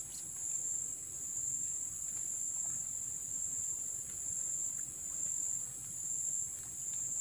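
A steady, high-pitched chorus of insects chirring without a break.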